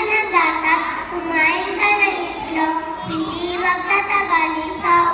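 A group of young girls singing a nursery rhyme together in children's voices, with some notes held.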